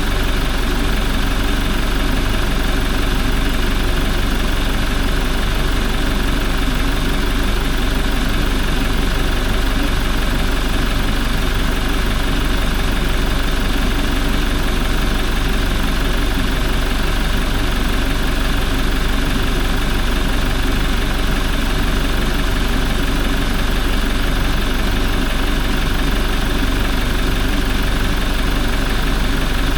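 Toyota 1GD-FTV 2.8-litre four-cylinder turbodiesel idling steadily.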